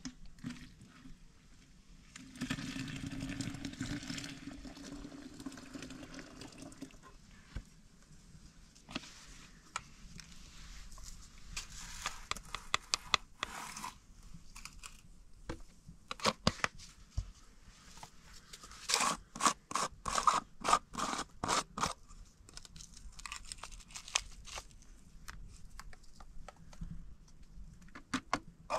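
Irregular scraping, crunching and clicking handling noises, with a steadier noisy stretch in the first few seconds and a busier run of sharp clicks about two-thirds of the way through.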